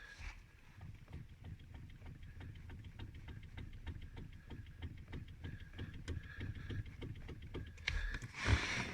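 Steering column intermediate-shaft cardan joint of a Kia Sorento XM knocking lightly as the steering wheel is jerked back and forth: a quick, even run of faint knocks, about five a second. It is the sign of play in the splined connection between the column's cardan and the steering rack.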